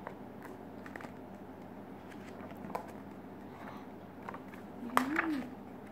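Pages of a paperback book being handled and turned, with soft rustles and small clicks. About five seconds in comes a sharp click, then a brief voiced sound that rises and falls in pitch.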